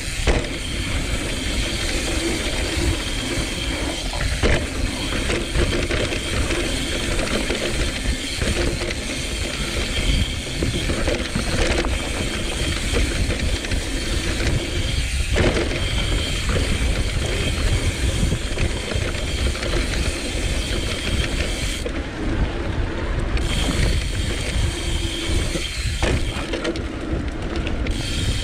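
Mountain bike's rear freehub buzzing as the rider coasts downhill on a dirt trail, over a steady low rumble of tyres on dirt and wind. The buzz drops out briefly twice near the end.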